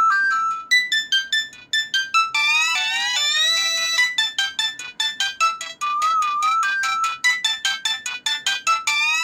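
Nokia 1661 mobile phone playing a built-in ringtone: a quick synthesized melody of short notes with a warbling trill, looping, so the phrase starts over near the end.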